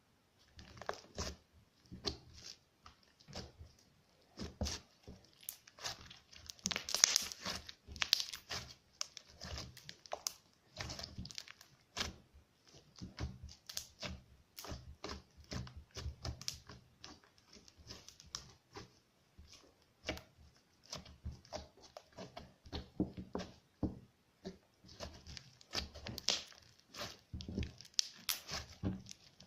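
Crunchy slime being squeezed and stretched by hand, giving a dense, irregular run of crackles, pops and squishes.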